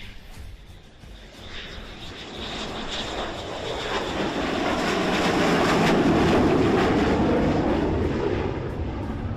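Fixed-wing aircraft flying past: its engine noise grows steadily louder, peaks about six seconds in with the pitch falling as it passes, then fades.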